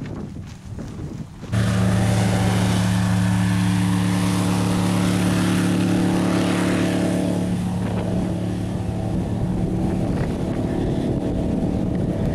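Wind buffeting the microphone, then, about a second and a half in, an airboat's engine and air propeller start abruptly as a loud, steady, deep drone. The drone shifts slightly about halfway through.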